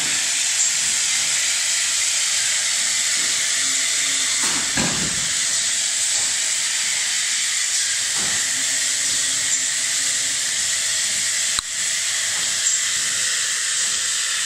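Industrial RO membrane rolling machine giving off a loud, steady hiss that starts abruptly, with a few soft knocks and a sharp click past the middle.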